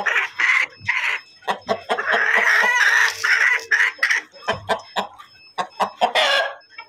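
Chickens clucking in quick, short calls, with a rooster crowing once for about a second a little after two seconds in, and another loud call near the end.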